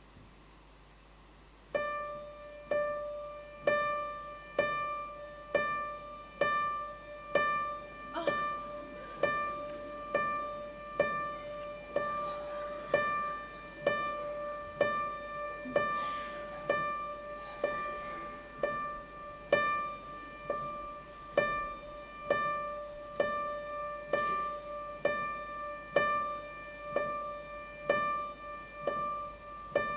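A single high piano note struck over and over at an even pace, a little under once a second, starting about two seconds in as the introduction to the song.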